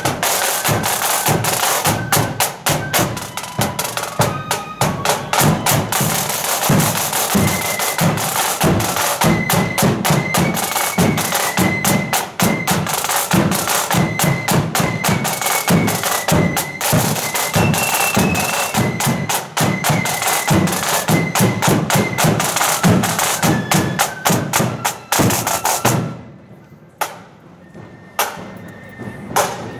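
Marching flute band playing a tune: a high flute melody over rattling side drums and a bass drum beat. About 26 seconds in the music stops, leaving only a few sharp taps.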